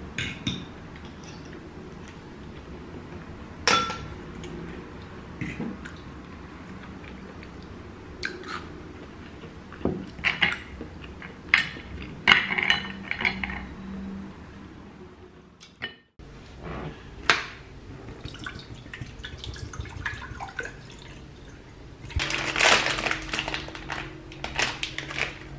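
Metal cutlery clicking and clinking against seashells and a plate during a seafood meal, in scattered sharp taps. Later, kitchen handling noises by the stove, with a louder, denser stretch of clatter near the end.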